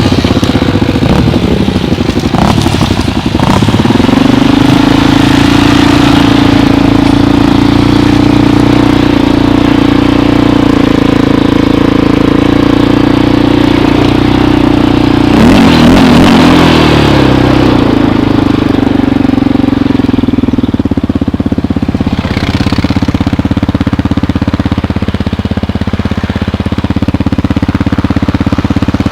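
ATV engine running close to the microphone. It is rough and uneven for the first few seconds, then holds a steady raised speed. Its pitch drops around 16 seconds and it settles into a lower, steady idle from about 20 seconds on.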